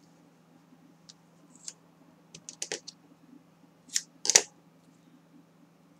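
Scissors snipping double-sided tape about four seconds in: two quick sharp cuts, the second the loudest. Before them, a few light clicks and taps as the tape is pressed onto card.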